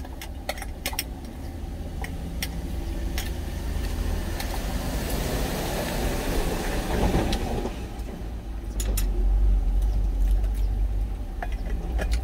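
Steady low rumble of an idling truck engine heard inside the cab, with light clicks of a spoon and chopsticks on a stainless steel bowl. About four seconds in, a large vehicle passing close alongside swells into a rush of noise and fades away by about eight seconds.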